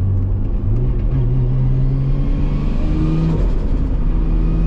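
Nissan Skyline R33's RB25 straight-six engine heard from inside the cabin under way, its note stepping up in pitch twice as it pulls. It sounds smooth rather than rough, running on a new trigger kit with more ignition timing at low revs.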